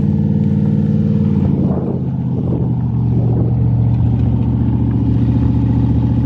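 A Ford SN95 Mustang GT's V8 engine runs at raised revs while the car is stuck. The pitch drops back about two seconds in, then holds steady.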